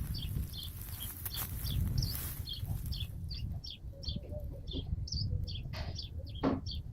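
A songbird calling in a quick, even series of short high chirps, about three or four a second, over a steady low rumble.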